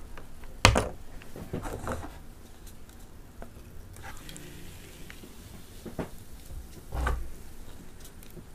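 Small plastic Pepsi bottle being opened and handled: a sharp knock about a second in, a few lighter clicks, and a faint pour of cola into a paper cup in the middle, then a duller thud near the end as the bottle or cup is set down.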